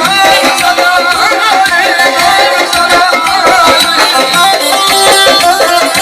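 Azerbaijani folk ensemble music: a saz among the instruments playing a wavering melody over a dense drum beat.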